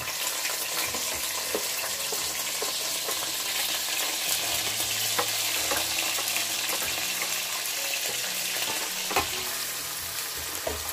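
Chopped red onions, coriander and mint sizzling in hot oil in a non-stick wok, with a wooden spatula scraping and clicking as they are pushed in and stirred. One sharper knock about nine seconds in.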